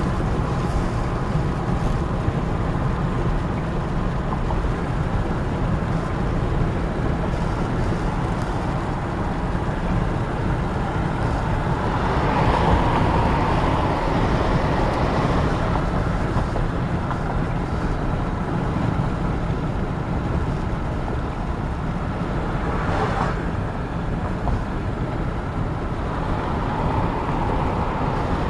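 Steady low rumble of a car driving, tyre and engine road noise, swelling briefly about halfway through.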